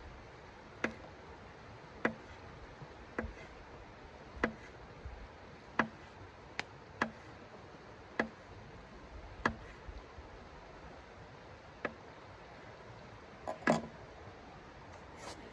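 Dry sausage being sliced by hand with a folding knife, a sharp click with each slice, about one every second and a bit. A louder knock near the end.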